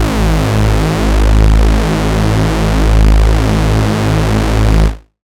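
Vectra software synthesizer holding one sustained, bass-heavy tone through its unison stack, the detuned voices shimmering and beating against each other. It stops about five seconds in.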